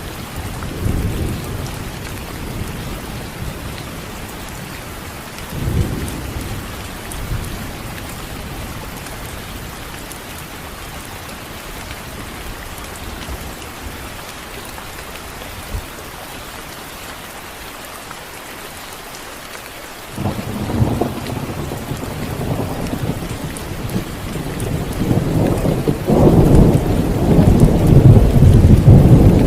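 Steady rain with thunder: a brief rumble about six seconds in, then a long rolling rumble that starts about two-thirds of the way through and grows loudest near the end.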